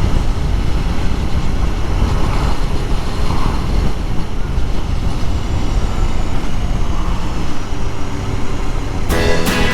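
2021 Aprilia Tuono Factory's V4 engine running on the move, under a steady rush of wind on the microphone. Music with plucked strings comes in near the end.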